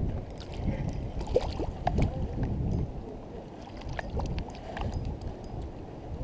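Wind buffeting the microphone in a steady low rumble on a gusty riverbank, with scattered faint clicks throughout.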